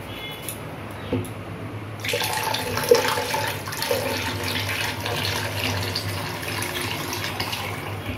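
Water poured in a steady stream from a steel pot into a pressure cooker, splashing into the pool gathering around the coconut inside, filling it to about half the coconut's height. The pouring starts about two seconds in, after a couple of light knocks.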